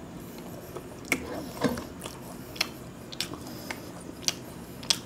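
Eating sounds picked up close by a clip-on microphone: a man chewing a mouthful of khichuri and working rice on a glass plate with his fingers, giving irregular sharp wet clicks and smacks about every half second.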